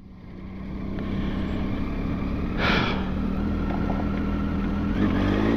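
Motorcycle engine running as the bike pulls away and rides on, growing louder over the first second, with a short hiss about halfway through. Its pitch rises near the end as it accelerates.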